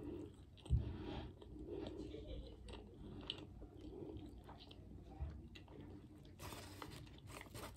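Close-up chewing of a fried flounder sandwich with the mouth closed: soft, wet mastication with a few light crunches and a thump about a second in. A short paper rustle comes near the end.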